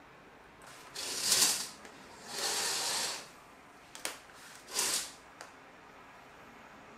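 Curtains and a glass sliding balcony door being opened. There are two rattling slides about a second apart, a sharp latch-like click about four seconds in, then another short slide and a small click.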